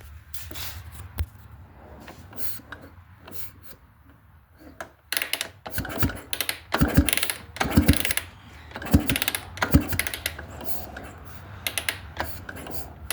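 Suzuki RM80 two-stroke engine being turned over with the cylinder head off: clusters of mechanical clicks and knocks come about once a second from around five seconds in.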